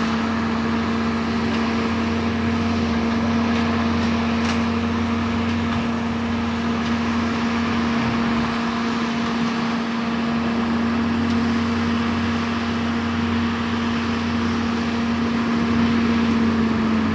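John Deere skid steer with a forestry mulcher head running at a steady high throttle, a constant hum with a noisy edge that drops slightly in pitch near the end.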